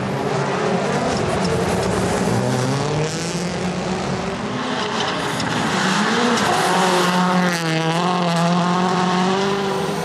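Rally cars' turbocharged four-cylinder engines running at high revs, the pitch climbing and dropping again and again as the drivers change gear and lift off.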